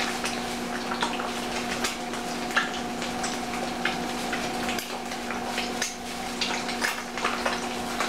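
A clear plastic bag of sliced ham crinkling and rustling as it is handled and closed up. Behind it, a steady hiss with frequent small crackles, typical of eggs frying in a pan, and a steady hum.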